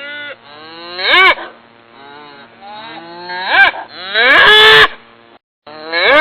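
Cattle mooing: a series of short calls that rise and fall in pitch, the longest and loudest one about two-thirds of the way through.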